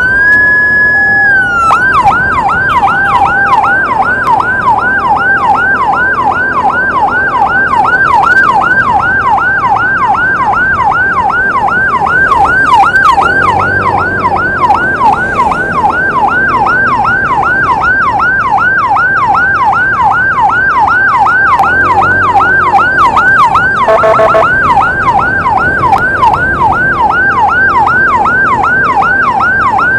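Emergency siren, loud, holding one high tone for about two seconds and then switching to a fast yelp of about three rising-and-falling sweeps a second. Near the end a brief horn-like blast breaks in.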